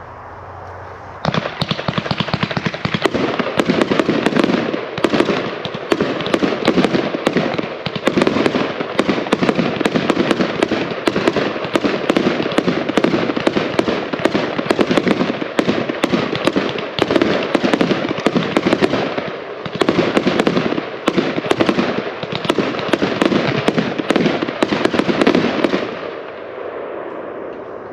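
An 81-shot consumer fireworks cake firing a rapid, continuous barrage of shots and bursts. It starts about a second in and stops a couple of seconds before the end.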